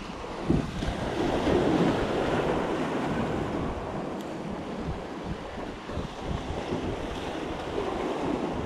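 Ocean surf breaking and washing over the rocks of a jetty, a steady rush that swells louder about a second in, with wind buffeting the microphone.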